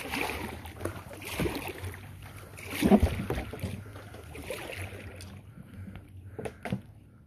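Kayak paddle strokes splashing and dripping in the water, with a thump about three seconds in; the splashing grows quieter near the end.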